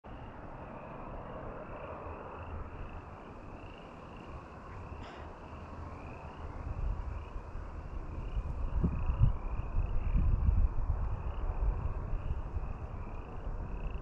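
Wind buffeting the microphone as a low rumble, growing stronger about halfway through, over a faint high chirp repeating about once or twice a second, with a single click early on.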